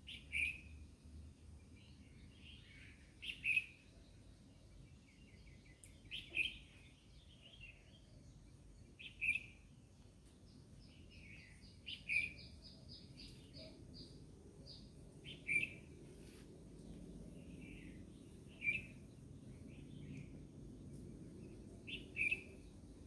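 A bird singing outside, repeating a short, clear call about every three seconds, with fainter chirps and a quick trill of high notes between calls.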